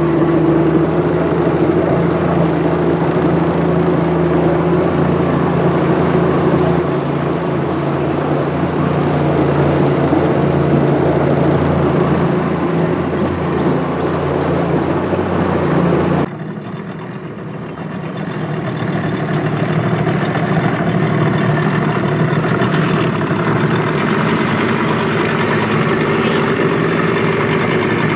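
A boat's motor running steadily under way. About two-thirds of the way through, the sound drops suddenly, then builds back up over a few seconds.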